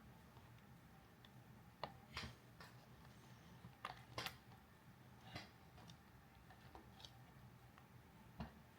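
Faint, scattered clicks and taps, about half a dozen over several seconds, over a low room hum: glue and slime activator being stirred in a cup, the stirrer knocking against the cup.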